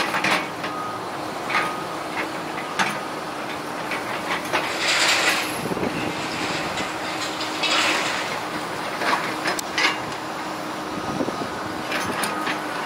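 Demolition excavators, one a Volvo, running with a steady engine drone and hum, over scattered sharp knocks and clatter of concrete block and debris. There are two longer noisy rushes about five and eight seconds in.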